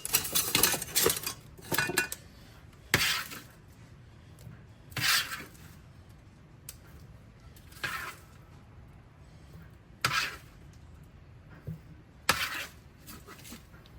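A utensil and cookware clinking and scraping as cooked broccoli and cauliflower are moved into a pan of cheese sauce. A quick cluster of clatters comes first, then single scrapes about every two seconds.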